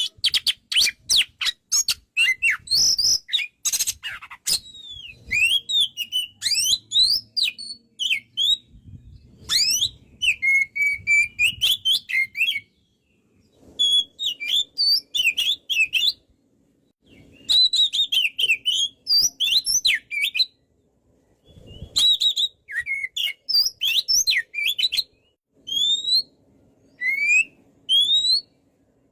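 Oriental magpie-robin singing vigorously: a rapid run of harsh clicks and chatter at first, then varied whistled phrases with rising and falling glides, broken by short pauses, and short rising whistles near the end.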